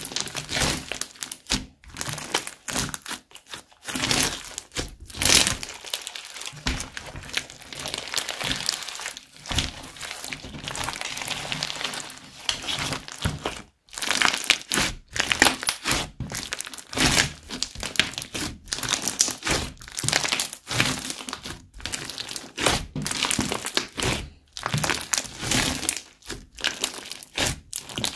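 Crunchy slime packed with foam beads being stretched, folded and squeezed by hand: dense crackling and popping of the beads and trapped air, coming in bursts with each squeeze and pull, with short pauses between.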